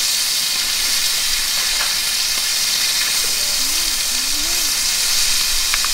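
Steady hiss of meat sizzling in a hot pan on a wood stove, together with the hiss of a Petromax HK500 kerosene pressure lantern burning close by.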